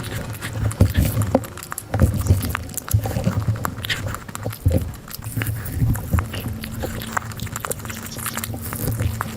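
Close-miked eating sounds: irregular chewing, smacking and wet mouth clicks.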